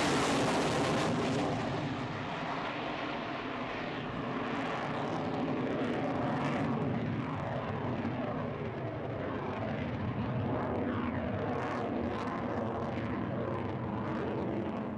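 Jet noise from a Eurofighter Typhoon's twin EJ200 turbofan engines as it flies a display pass overhead. It is loudest in the first couple of seconds, eases a little, then swells again, with sweeping rising and falling tones in the middle and later part as the jet passes.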